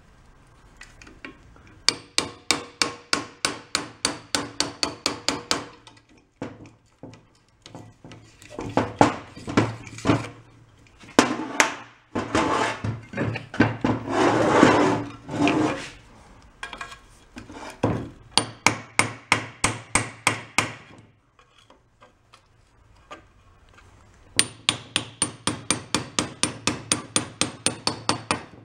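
Runs of quick hammer blows on metal, about four a second, with short pauses between runs: a hammer driving a paint scraper into a stuck joint of an antique tiller's cast-iron engine and gearcase.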